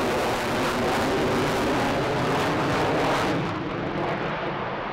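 Loud, steady jet noise from an F-22 Raptor's twin turbofan engines during a high-G aerobatic manoeuvre. About three and a half seconds in, the sound changes abruptly, losing its highest hiss and dropping a little in level, with the afterburners lit.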